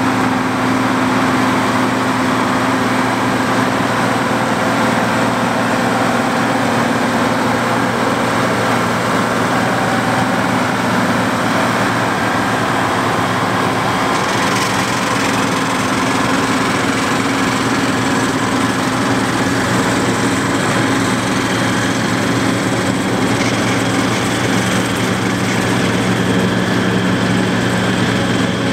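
White 195 tractor's diesel engine running steadily under load, driving a PTO-powered New Holland FP230 forage harvester whose cutterhead and blower add a dense, steady machine noise, as the rig passes close by.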